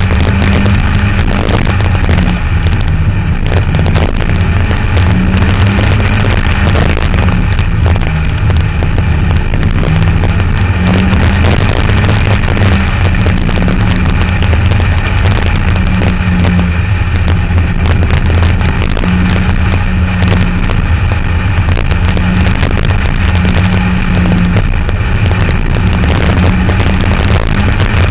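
Car engine running at a steady cruise with a low drone, its pitch wavering slightly, under constant wind rush on the microphone from an open cockpit.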